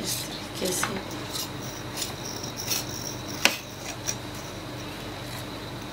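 A chef's knife scraping and ticking against a steel ruler as it cuts through rolled pastry dough: a handful of short scrapes and knocks over the first four seconds, the sharpest about three and a half seconds in, over a steady low hum.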